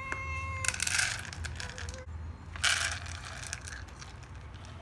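A cat's meow, held on one steady pitch, ends just after the start. Then come two short bursts of rattling and rustling as cat food is dished out for feeding, with a short soft cat call between them.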